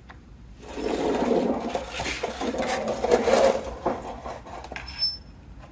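Plastic marble-run track pieces being handled and fitted together: a scraping, rustling clatter for about three seconds, then a few separate clicks.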